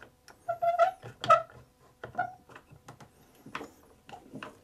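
Quick-Grip one-handed bar clamp being tightened by squeezing its trigger handle: an irregular run of short clicks and squeaks.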